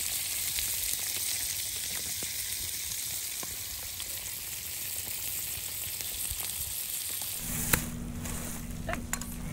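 Scallops sizzling steadily in butter in their own shells on hot embers, with faint crackles. About seven seconds in, the sizzle cuts off and gives way to a low rumble with a single sharp click.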